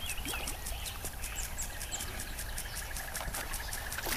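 Birds chirping over a fast, even ticking of about six ticks a second, with a faint rapid trill joining about a second in.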